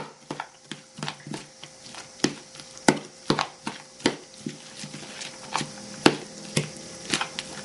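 A spoon stirring a tofu, cucumber and carrot salad in a bowl, clicking and scraping against the bowl about three times a second in an uneven rhythm.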